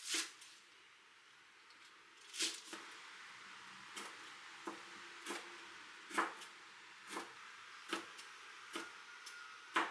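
A series of short, sharp taps and knocks, about a dozen, irregularly spaced roughly a second apart, over a faint steady hiss.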